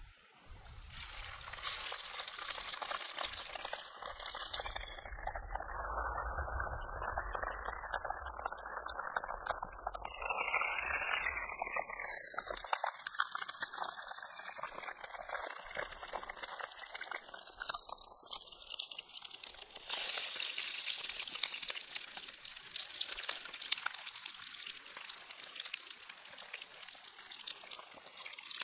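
Pieces of catfish frying in hot oil in a wok: a dense crackling sizzle that sets in about a second in and keeps on steadily.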